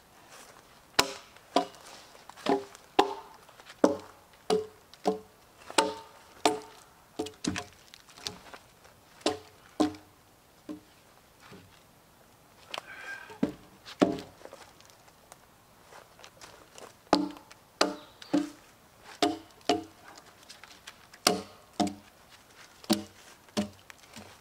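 Logs knocking against each other as they are lifted, rolled and dropped onto a log rack: irregular hollow wooden clunks, each with a short ringing tone, about one or two a second, with a brief scrape around halfway.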